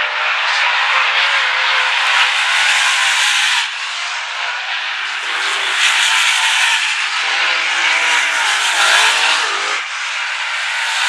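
V8 engines of dirt late model race cars running at speed around a dirt oval, the pitch rising and falling as the cars pass and go through the turns. The level drops suddenly about four seconds in and again near the end.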